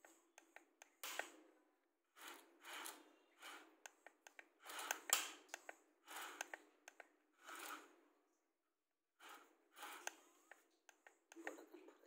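Toy excavator's plastic bucket scraping and scooping sand, heard as faint, short gritty bursts with small clicks, about a dozen of them separated by brief pauses.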